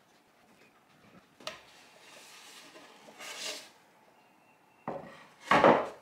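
Glued wooden finger-jointed boards knocking and rubbing against each other as they are pushed together. There is a sharp knock about a second and a half in, then rubbing, and the loudest knock comes near the end.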